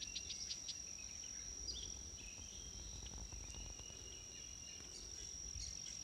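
A steady high-pitched insect drone from the marsh, with a quick run of bird chirps near the start and a few more scattered through.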